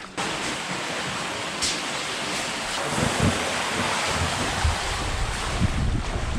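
Water rushing steadily down an open tube water slide's flume, heard as an even hiss. From about three seconds in, low rumbling gusts of wind on the microphone build up as the rider's tube gets moving.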